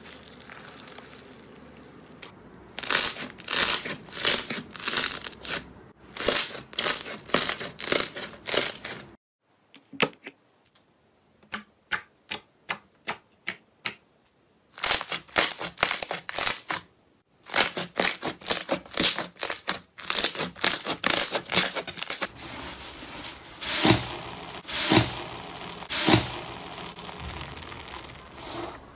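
Crunchy bead-filled slime being squeezed and pulled by hands, giving dense bursts of crackling. About nine seconds in, this gives way to a run of single sharp clicks, about two a second, as fingers press into a glossy slime. From about fifteen seconds, foam-bead slime crackles and crunches as its cracked crust is broken up by hand.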